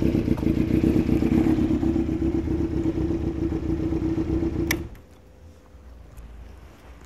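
Honda CBX400F's air-cooled inline-four idling steadily and low. About four and a half seconds in, it is switched off at the ignition key: a click, and the engine dies out at once, leaving faint small clicks.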